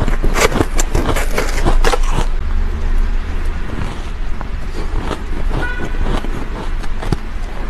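Metal spoon scraping and scooping soft shaved ice in a plastic tub, a quick run of crisp crunchy scrapes for about two seconds. Then quieter, sparse crunching as a mouthful of the soft ice is chewed, with one brief high squeak a little past halfway.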